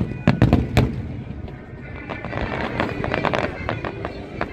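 Aerial fireworks shells bursting: four sharp booms in quick succession in the first second, then a stretch of dense crackling from about two to three and a half seconds in.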